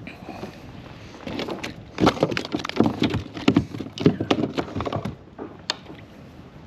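Rapid, irregular knocking and slapping against the kayak, starting about two seconds in and lasting about four seconds: a small bass thrashing and throwing the hook.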